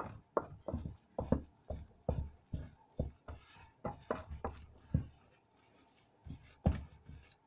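Wooden spatula stirring and scraping a thick mashed-potato dough in a stainless steel bowl, knocking and rubbing against the bowl about two to three times a second. It goes quieter about five seconds in, with one sharp knock near the end.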